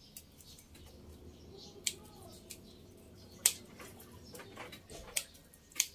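A few sharp snips of pruning shears cutting at a marcotted branch, the loudest about three and a half seconds in. Faint bird chirps come and go behind them.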